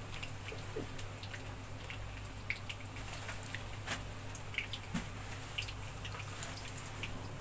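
Water dripping and splashing in small scattered drops as soaked fried gram-flour dumplings are lifted out of a bowl of water and squeezed by hand, over a steady low hum.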